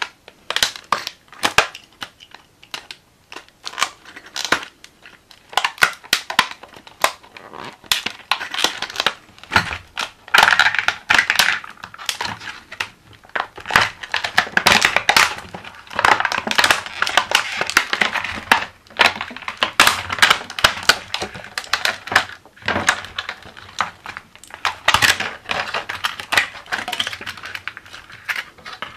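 Stiff clear plastic blister pack being cut with a utility knife and pried and torn apart by hand: an irregular run of sharp crackles, snaps and crinkling that grows busier about ten seconds in.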